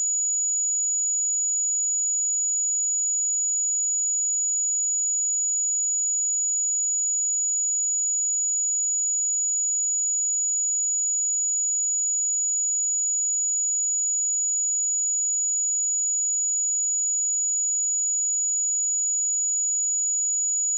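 A steady, high-pitched pure sine tone at 6874 Hz, a test signal for checking speakers or headphones, holding one pitch and level throughout.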